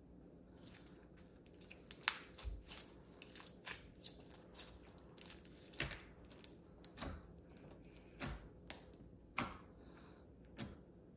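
Peachybbies 'The Slime is Lava' red clear slime being stretched, pressed and poked with the fingers, giving irregular pops and clicks, one or two a second, from about two seconds in.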